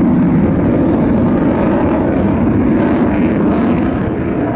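Jet noise from an F-15 fighter's twin turbofan engines in flight: a loud, steady roar that eases slightly near the end.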